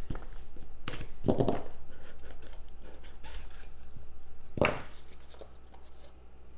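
Small cardboard trading-card boxes being handled on a tabletop: slid, picked up and set down, with a few sharp knocks and rustles, the clearest about a second in and near the middle.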